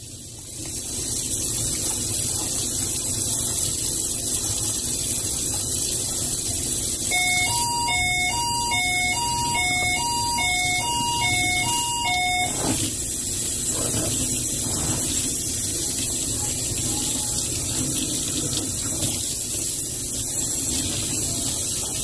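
Tap water running steadily into a stainless steel sink and splashing over a filter being rinsed by hand. For about five seconds in the middle, an electronic jingle plays: two alternating notes, about three a second.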